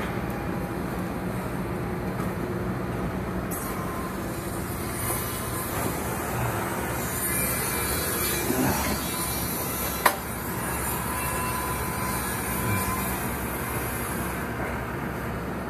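Steady low rumble of construction-site machinery and traffic, with a hiss that comes in a few seconds in and fades near the end. A single sharp click or knock about ten seconds in is the loudest sound.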